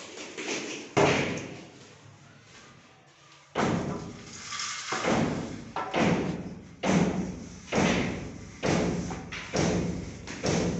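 Stone being laid: a series of heavy thuds. One comes about a second in, then after a pause a regular run of about eight, a little under one a second.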